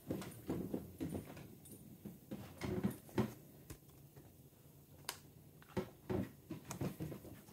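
Printed paper inner sleeve and glossy photo inserts of a vinyl LP being handled and turned over: soft paper rustles and a scattering of short clicks and taps, about eight in all.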